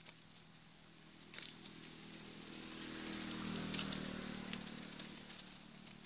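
A motor vehicle's engine hum swells to its loudest about halfway through and fades again, like a vehicle passing by. Dry leaves rustle and crackle with a few sharp clicks as monkeys scuffle on the leaf litter.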